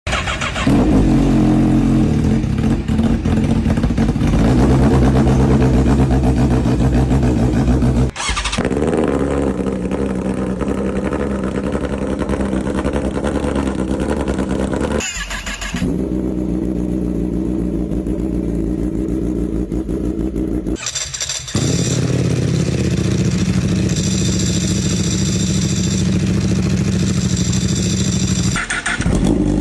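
Motorcycle engines running and revving, one bike after another, each for several seconds, with a sudden switch to a different engine note about four times.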